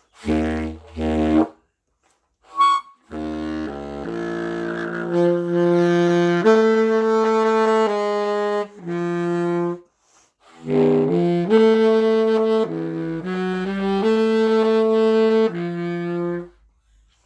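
Trumpet played with a clarinet mouthpiece fitted, giving a reedy saxophone-like tone. Two short notes come first, then a run of held notes stepping up and down. After a brief pause about ten seconds in, a second run of held notes follows.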